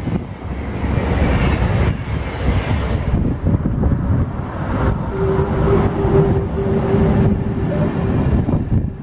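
Electric trains passing close by: a BLS Re 485 electric locomotive and its freight wagons roll past, wheels rumbling steadily on the rails, with a steady tone joining in for a few seconds in the second half.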